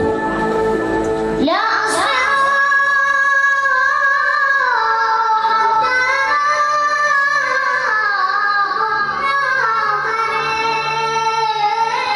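A munshid's voice singing a mawwal, the free, unmetred Arabic vocal improvisation: from about a second and a half in, long high held notes sliding between pitches with melismatic ornaments.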